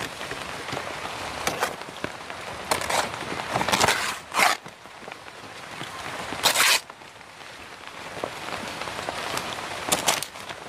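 Banana leaves being torn off the plant by hand: a series of sharp ripping and crackling tears, one to two seconds apart, with the loudest about four and six and a half seconds in. Light drizzle patters steadily underneath.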